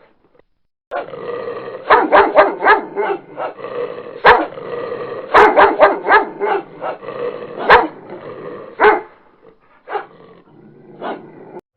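Dog barking: a series of short, sharp barks with a quick run of them about two seconds in, growing sparser toward the end.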